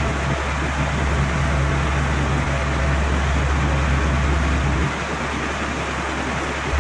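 Tractor engine running steadily with a low hum. About five seconds in it drops a little in level, then comes back up near the end.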